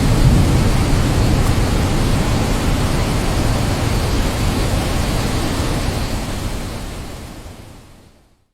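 Steady rushing of heavy water, even and without distinct drops or strikes, fading out over the last two seconds.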